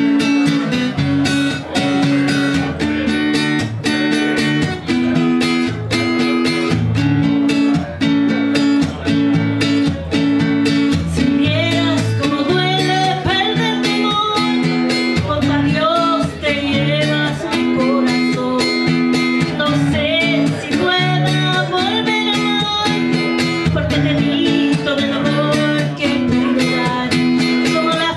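Live acoustic guitar strummed in a steady rhythm, with a woman singing that comes in about twelve seconds in.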